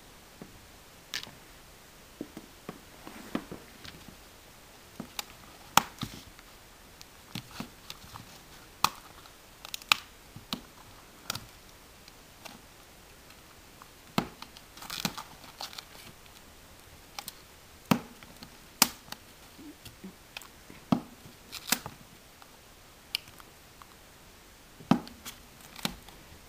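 Irregular light taps, clicks and crinkles of paper as fingers and a wooden toothpick work on a sheet of paper, nudging small red bits into a ring.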